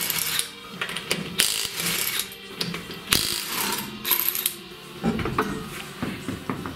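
Cordless impact wrench hammering the wheel's lug nuts loose in about five short bursts, followed by softer knocks as the wheel is pulled off the hub.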